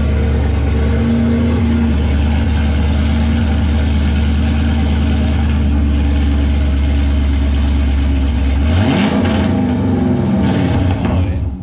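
2010–2015 Chevrolet Camaro SS's 6.2-litre V8 idling with a steady low rumble, then revved twice near the end, the pitch rising each time.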